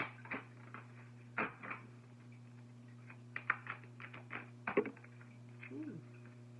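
A deck of oracle cards being handled and shuffled: scattered light taps and flicks of cardstock, the sharpest about three and a half and four and three-quarter seconds in, over a steady low hum.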